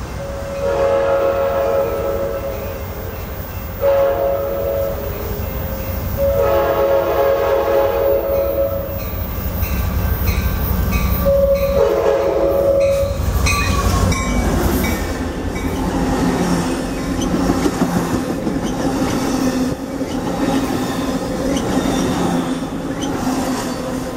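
Approaching passenger train's horn sounding four blasts, each a chord of steady tones, the third the longest. From about halfway in, the train passes close by, its wheels clattering on the rails.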